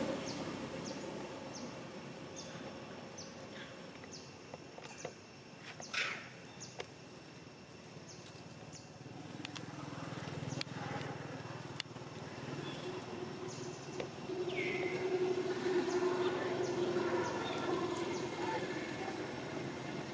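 Outdoor ambience of short high bird chirps repeating every second or so, with a sharp click about six seconds in. From about halfway a steady vehicle-engine hum comes in and grows louder.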